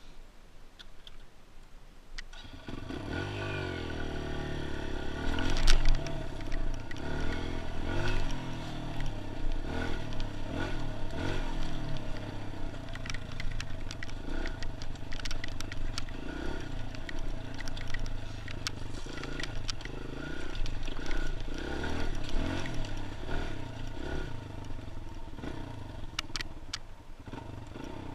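Kawasaki KLX140G dirt bike's single-cylinder four-stroke engine comes in about two seconds in and revs up, then runs under way with the revs rising and falling as it is ridden. A sharp knock about six seconds in, and scattered clatter of stones.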